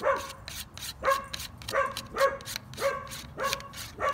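A dog barking over and over at an even pace, about one bark every half second or so.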